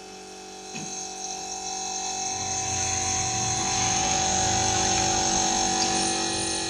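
Motorcycle engine fitted to a homemade go-kart-style cart, running with a steady buzz that grows louder from about a second in, with a deeper rumble added from about two seconds in.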